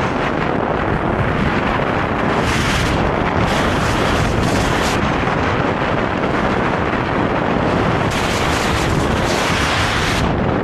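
Loud wind buffeting the microphone of a fast-moving skier, mixed with the hiss of skis carving and scraping over packed snow, which swells several times as turns are made.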